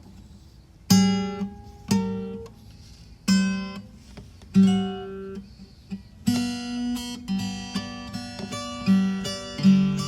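Acoustic guitar music: after a quiet first second, single strummed chords ring out about a second apart, then steadier rhythmic strumming sets in about six seconds in.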